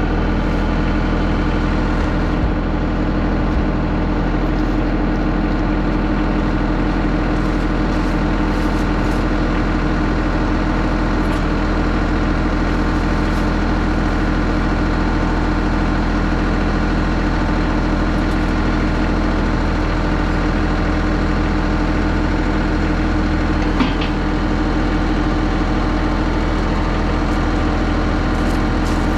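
Bad Boy 4035 tractor's diesel engine idling steadily, with a single knock near the end.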